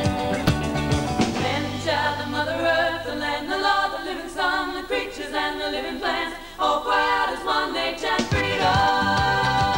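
Music: a breakdown of layered women's vocal harmonies with no clear words, the drums and bass dropping away. The full band comes back in about eight seconds in.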